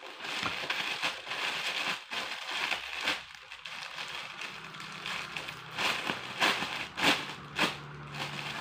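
Plastic bag crinkling and rustling as hands rummage through it, with a few sharper crackles near the end.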